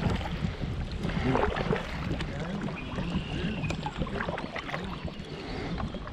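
Kayak paddle strokes swishing and dripping in the water, with wind buffeting the microphone.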